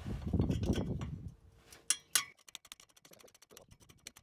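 Ratchet spanner working a 10 mm nut on a car's exhaust clamp: two sharp metallic clinks about two seconds in, then a fast run of faint ratchet clicks. A low rumble fills the first second.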